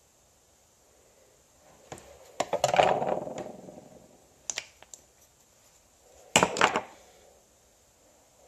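Handling noises from a lip gloss tube and its applicator wand close to the microphone, with clicks, scrapes and rustling. There is a cluster of them about two to three and a half seconds in, a few small clicks around four and a half seconds, and two louder clicks around six and a half seconds.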